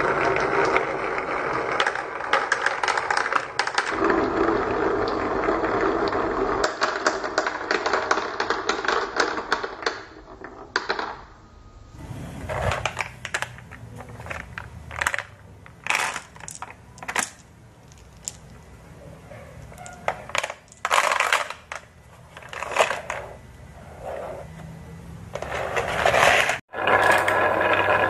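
Many marbles rolling and clattering down carved wooden wavy tracks, in a dense, continuous rattle. From about halfway the sound becomes scattered separate clicks as marbles knock together in a plastic toy truck's bed. A fresh run of rolling clatter starts near the end.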